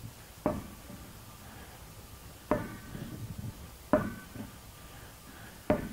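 Large inflated rubber ball bounced off a carpeted floor and caught, back and forth: four separate thumps, each with a brief ringing after it.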